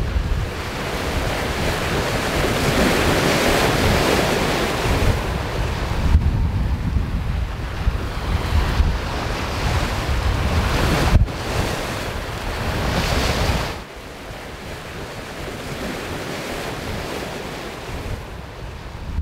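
Wind and rushing waves around a sailing yacht under way in choppy seas, with wind buffeting the microphone. The noise swells and eases, then drops off abruptly about fourteen seconds in.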